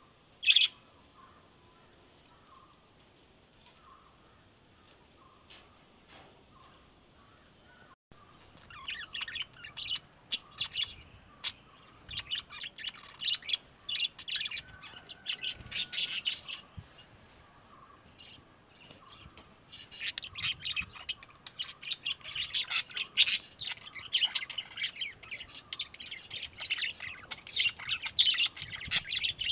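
Lovebirds chirping: one loud chirp at the start, then from about eight seconds in a busy stretch of rapid high-pitched chirps that eases briefly midway and picks up again.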